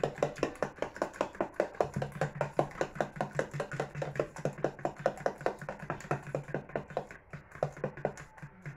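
A fork beating eggs by hand in a plastic tub: rapid, even clicking strokes of metal against plastic, about six a second, easing briefly about seven seconds in. A steady low hum runs underneath.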